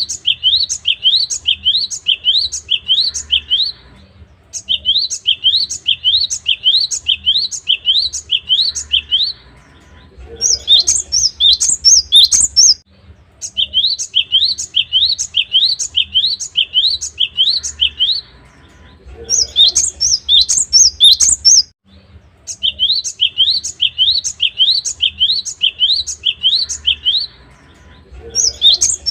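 Cinereous tit (gelatik batu) singing loud, repeated phrases: runs of quick rising whistled notes, about three a second, alternating with shorter bursts of higher, more complex notes, with brief pauses between phrases.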